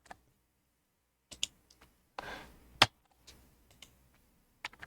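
Computer keyboard keys clicking, a scatter of separate sharp clicks a few tenths of a second to a second apart, with the loudest click about three seconds in, just after a short hiss.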